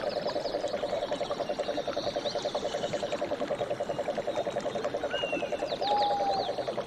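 Frog calling in a rapid, even, pulsing trill, with small birds chirping high above it. A short clear whistle comes near the end.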